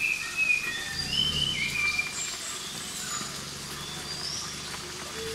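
Forest birds calling: a scatter of short, clear whistled notes at several different pitches, overlapping one another.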